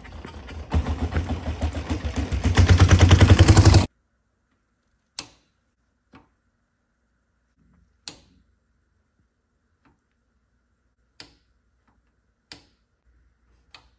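1934 Harley-Davidson single-cylinder alcohol speedway racer being push-started. The engine catches under a second in and runs with rapid, loud exhaust beats that grow louder, then cuts off abruptly about four seconds in. After that come single sharp clicks a second or more apart, from the hand-worked compression release mechanism.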